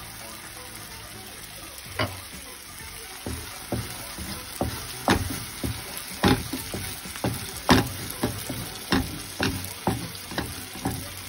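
Wooden spatula scraping and knocking against a granite-coated frying pan, pushing thick tomato and chilli sauce to one side, over a faint sizzle. The strokes start about two seconds in and come about twice a second.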